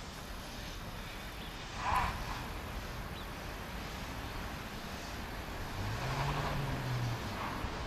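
Metre-gauge Harz steam tank locomotive 99 7232-4 moving slowly, steam hissing from its open cylinder drain cocks, with a brief louder burst about two seconds in. A low hum rises and falls near the end.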